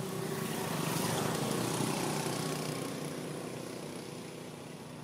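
A passing motor engine that swells to its loudest a second or two in, then fades away.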